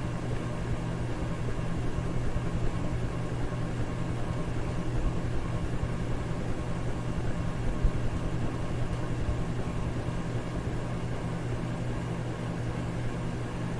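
Electric fan running steadily: an even rush of air noise over a constant low motor hum.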